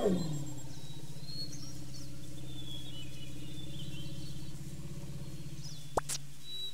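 Animated elephant sound effect: a call that drops in pitch and settles into a long, low, pulsing rumble that eases off after about four and a half seconds, over faint birdsong. A single sharp click about six seconds in.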